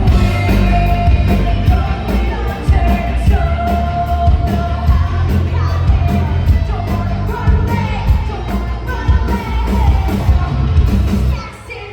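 Rock band playing live with a singer over drums and guitars, the drums hitting in a steady beat. The music drops off sharply near the end.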